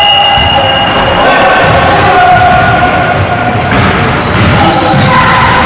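Basketballs bouncing on a hardwood gym floor with players' voices, echoing around a large hall.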